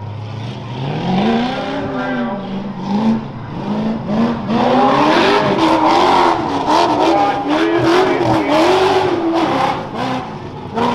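Off-road race buggy's engine revving up and down repeatedly as it is driven through a dirt obstacle course, its pitch rising and falling with the throttle and louder from about halfway in.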